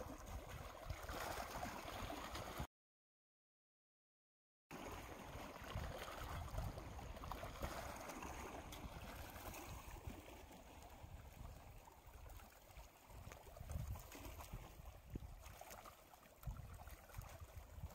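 Small waves lapping and splashing against a rocky shore, with a low wind rumble on the microphone. The sound drops out completely for about two seconds near the start.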